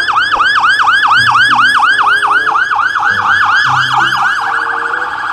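Electronic police siren on a fast yelp, its pitch sweeping up and down about five times a second. About four seconds in it switches to a quicker warble.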